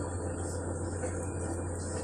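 Wooden spoon stirring steamed barley grits in a glazed clay dish: a soft, even granular rustle, over a steady low hum.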